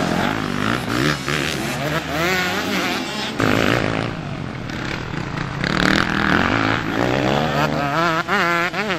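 Motocross bike engines revving hard as the bikes ride past, the pitch rising and falling over and over as the riders work the throttle. Near the end one engine's pitch wobbles up and down quickly.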